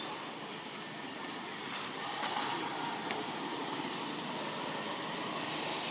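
Steady outdoor background hiss, with a few faint soft clicks about two and three seconds in.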